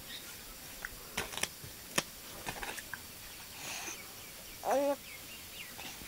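Quiet background with a few faint clicks and taps, and one short call with a wavering pitch a little before the end.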